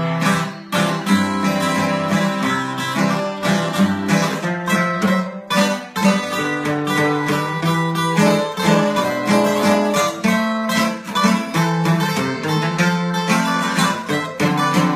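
Two acoustic guitars playing together in a Mexican regional style, strummed chords under quick picked notes.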